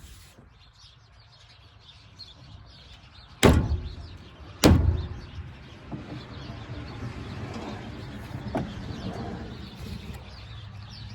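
Two sharp knocks, a little over a second apart, as the acid container is pressed hard down onto the fill ports of a new ATV battery to pierce its seals. This is followed by a fainter steady gurgle with small ticks as the electrolyte starts draining into the cells.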